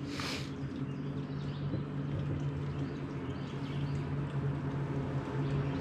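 Bass boat's electric trolling motor humming steadily, with a short hiss at the very start.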